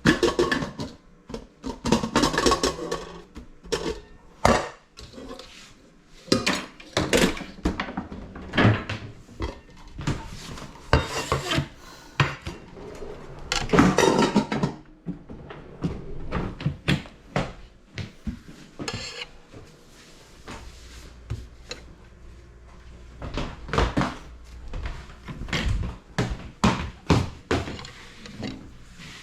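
Pots, pans and dishes clinking and clattering as they are handled and set down, in irregular knocks and clusters of clatter.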